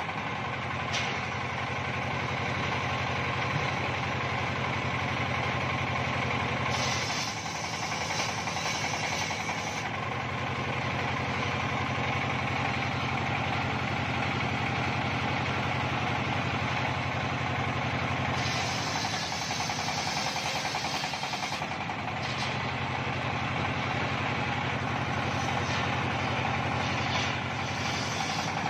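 Engine-driven homemade table circular saw running steadily while ripping a teak log lengthwise, with a constant low drone and a hissing saw noise over it. The low drone eases twice, about seven and nineteen seconds in.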